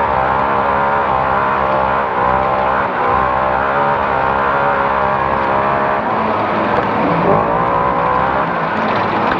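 Naturally aspirated off-road race car's engine running hard at high revs, heard from inside the car. The revs dip and climb back a few times, most clearly near the end.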